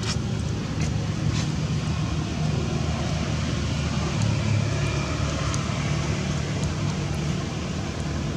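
Steady low rumble of a running motor vehicle engine in the background, with a couple of faint sharp clicks in the first second and a half.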